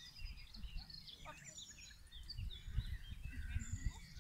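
Small birds singing and chirping, many short calls overlapping, over a low rumble.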